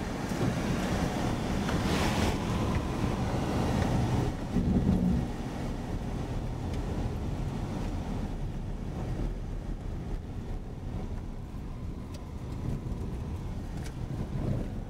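Road noise and wind on the microphone from a moving car. An oncoming vehicle passes close by about two seconds in.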